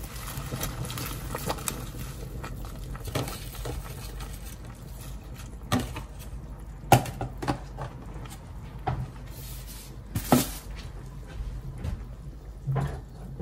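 Kale leaves rustling as a hand presses them into a steel pot, then scattered sharp knocks and clatter over a low steady hum, the loudest knocks about six, seven and ten seconds in.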